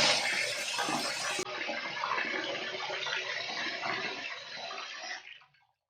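Running water, a steady splashing hiss that cuts off about five and a half seconds in.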